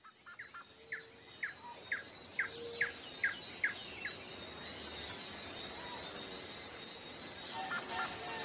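Birds chirping over a steady hiss of insects. One bird repeats a short falling call about twice a second for the first four seconds, with higher chirps from other birds above it.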